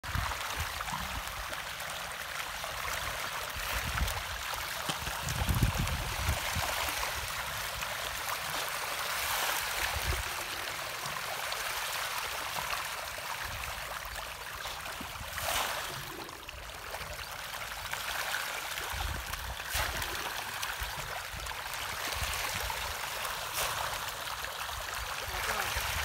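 Steady rush of flowing water, with low rumbles now and then.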